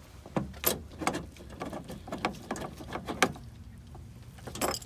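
Hand socket ratchet clicking in short irregular bursts as it drives the door panel's fasteners back in, with a quick cluster of clicks near the end.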